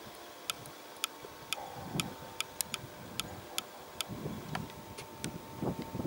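Sharp ticks from the steel rail, irregular but about two a second, over a thin steady whine and a low rumble that swells from about a second and a half in. This is the rail carrying the sound of an approaching freight train before the train comes into sight.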